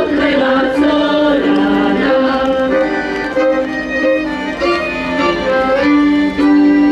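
Traditional folk music led by a fiddle, playing a melody of long held notes.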